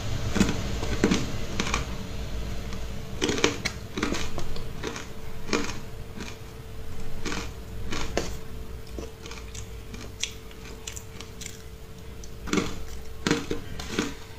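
Close-up chewing of powdery frozen matcha ice: irregular crisp crunches, some coming in quick clusters. A faint steady hum runs underneath.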